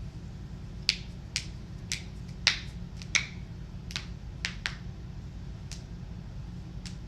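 Human joints cracking: about ten sharp pops in an irregular run, a few of them clearly louder than the rest.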